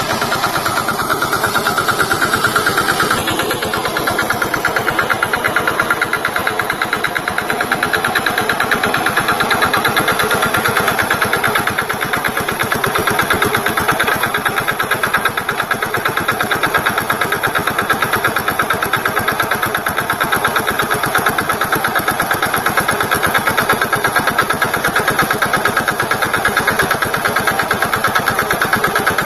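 VST Shakti tractor's diesel engine running steadily with a fast, even firing beat.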